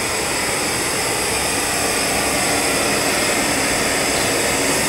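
Steady, unchanging drone of workshop machinery running, with no distinct knocks or strikes.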